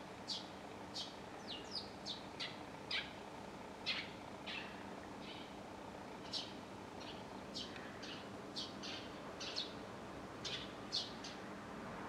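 Eurasian tree sparrow chirping: short, high, downward-slurred chirps, one or two a second at an irregular pace, over a faint steady background hum.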